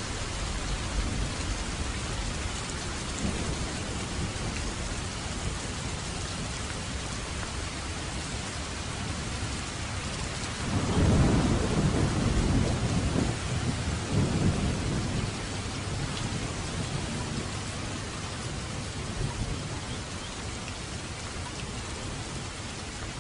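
Steady rain falling, with a low rumble of thunder about halfway through that swells twice and then fades back into the rain.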